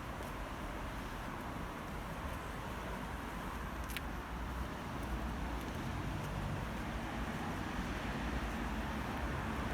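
Steady city street ambience of road traffic: a low, even rumble with a light hiss, and one short click about four seconds in.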